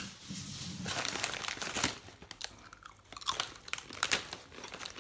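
A person chewing crunchy food, with irregular dry crunches.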